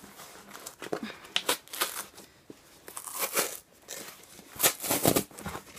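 Cardboard book-mailer box being torn open by hand, with irregular tearing and crinkling of the cardboard and packing; the loudest rips come near the end.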